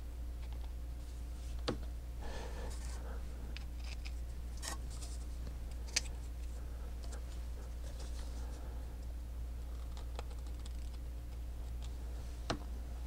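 Small laser-cut wooden parts and a plastic glue bottle handled at a workbench: light scattered clicks and taps, with three sharper clicks spread through, over a steady low hum.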